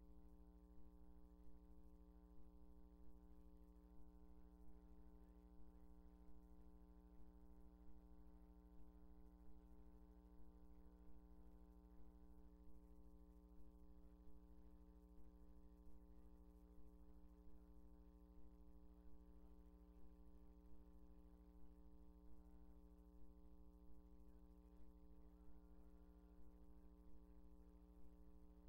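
Near silence: a steady low electrical hum with a faint, regular pulse.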